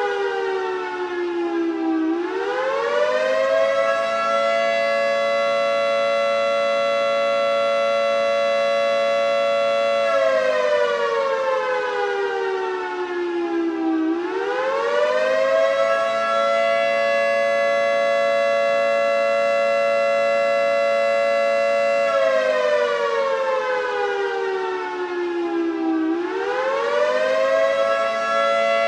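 Federal Signal 3T22A three-tone electromechanical warning siren sounding the Attack signal. Its chord winds up, holds for several seconds, then winds down partway before rising again, in cycles about every twelve seconds.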